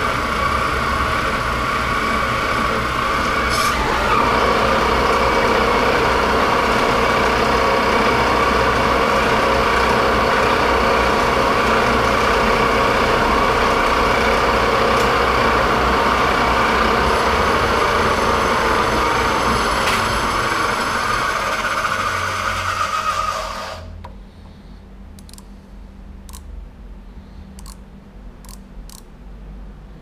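Martin metal lathe's spindle running at 1500 RPM during a turning pass on a small part: a loud, steady machine whine made of several fixed tones. About 24 seconds in it switches off and runs down to a low hum, followed by a few light clicks.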